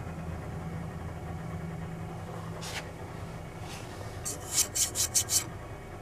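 Vintage Crosley Shelvador refrigerator's compressor running with a steady low hum. A quick series of about six short scratchy rubs, the loudest sound, comes a little past the middle, after one lone scrape.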